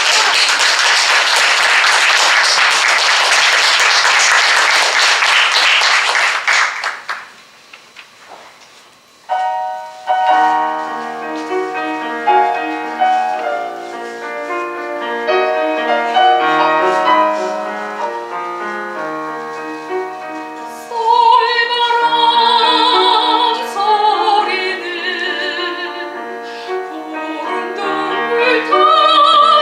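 Audience applauding for about seven seconds, then a short hush. A piano introduction to a Korean art song begins about ten seconds in, and a soprano joins with strong vibrato about twenty seconds in.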